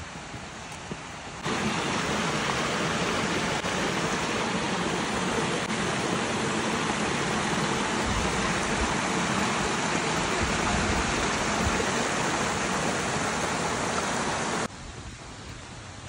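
Mountain stream rushing over rocks in small cascades, a steady rush of water. It cuts in abruptly about a second and a half in and cuts off just as abruptly about a second before the end.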